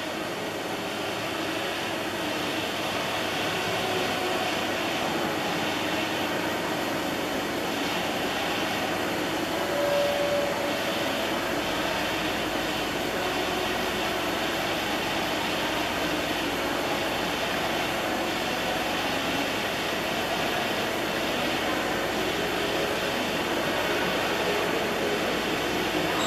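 Hartford HB 3150 bridge-type CNC milling machine running, a steady mechanical whir as its spindle head moves. The whir grows louder over the first couple of seconds, a short tone sounds about ten seconds in, and a deeper hum joins just after.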